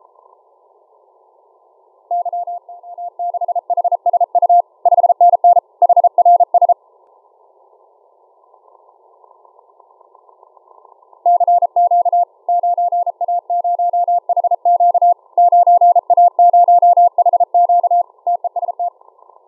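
Morse code (CW) signal heard through a shortwave software-defined radio receiver: a single steady tone keyed on and off in dots and dashes over narrow-band receiver hiss. There are two runs of keying. The first starts about two seconds in and stops before seven seconds. The second starts past eleven seconds and stops shortly before the end.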